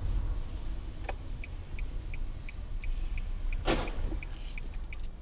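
Low rumble of a car's cabin as heard by a dash cam, with a steady ticking about three times a second. A little past three and a half seconds in comes a short noisy crash as two cars collide ahead.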